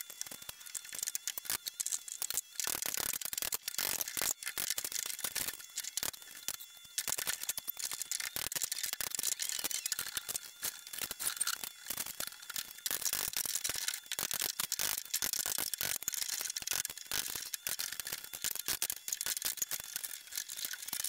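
A fast, dense run of small clicks and taps from hand work on the shed's wooden wall, with no heavy low thuds.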